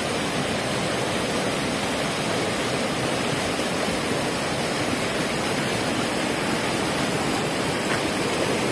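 A fast-flowing stream rushing over rocks: a steady, unbroken rush of water.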